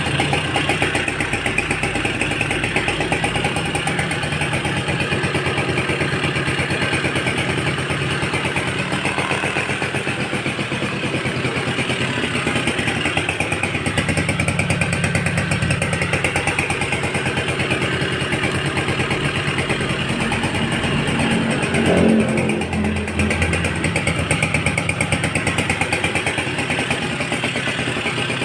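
Suzuki Tornado GX motorcycle's small two-stroke engine idling steadily, with one short blip of the throttle about three quarters of the way through.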